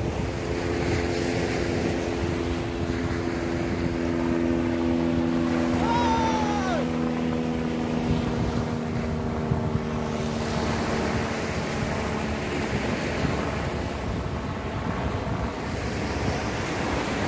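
Surf washing onto the shore with wind on the microphone, under a steady engine drone, typical of a motorboat, that fades out about two-thirds of the way through. A short rising-and-falling whistle-like call about six seconds in.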